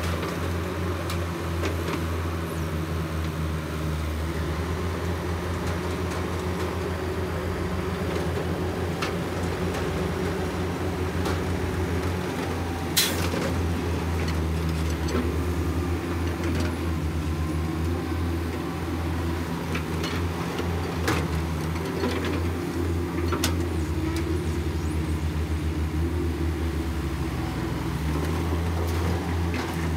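Diesel engines of a Caterpillar 312 hydraulic excavator and a second excavator running steadily as they dig and load dirt into a dump truck. Scattered knocks of rock and bucket, with one sharp knock about 13 seconds in.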